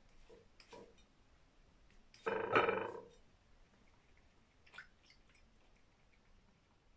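Cat lapping water from a ceramic bowl, soft wet laps throughout. About two seconds in there is one louder sound lasting under a second, ringing with steady tones.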